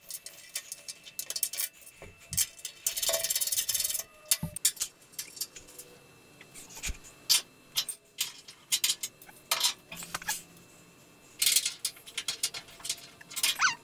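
Metal clinks and rattles of bolts, washers and a steel alignment pin being handled and started by hand in the holes of a steel radiator support and subframe: scattered sharp clicks, with a busier stretch of rattling about three seconds in.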